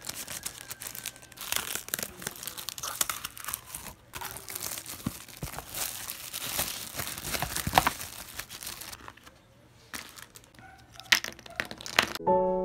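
Clear plastic packaging on new paintbrushes and a box of paint tubes crinkling and tearing as it is handled and pulled open, followed by a few knocks as the paint tubes are handled. Piano music starts right at the end.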